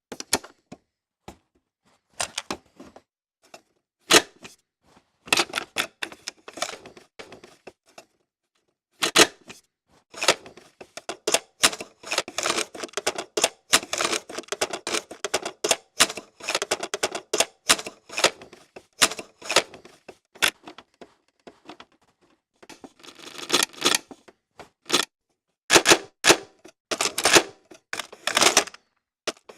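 Cassette tape eject mechanism and plastic cassette being worked: a series of sharp plastic and mechanical clicks and clacks, sparse at first, a dense rattling clatter through the middle, then a few loud single clicks near the end.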